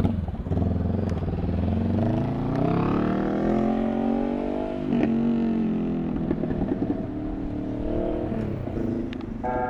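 A man's very long, low, rough burp, rumbling on for about nine seconds with its pitch slowly wavering, after gulping down water.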